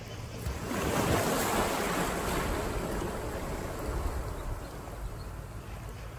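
Ocean surf: a wave breaks about a second in and washes out over the next few seconds. Under it runs a steady low rumble of wind buffeting the microphone.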